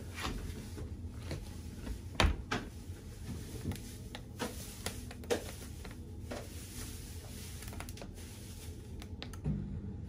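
Dishwasher door pushed shut and its control-panel buttons pressed: a series of clicks and knocks, the loudest about two seconds in. Near the end a low hum starts as the dishwasher begins its wash cycle.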